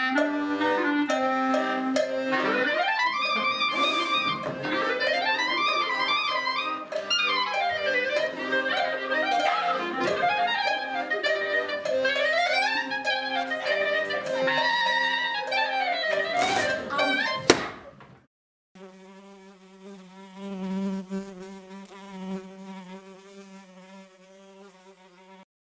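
Accordion and clarinet playing together: sliding, swooping melody lines over held accordion chords. The music stops abruptly about 18 seconds in, and after a short gap a softer held chord fades away.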